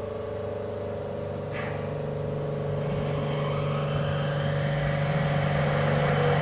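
Rubber-tyred Nippori-Toneri Liner car running, heard from inside the car: a steady electric drive hum over tyre noise on the concrete guideway, growing gradually louder.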